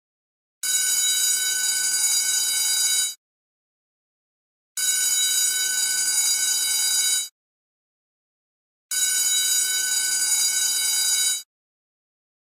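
School bell ringing in three bursts of about two and a half seconds each, with a silent gap of about a second and a half between them.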